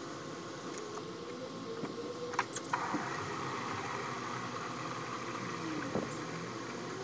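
A few sharp plastic clicks, then water from a garden hose running steadily into a plastic water jug from about three seconds in.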